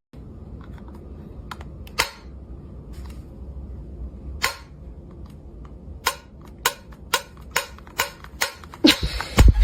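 A series of sharp taps over a low hum, sparse at first, then about two a second from about six seconds in, with louder knocks near the end.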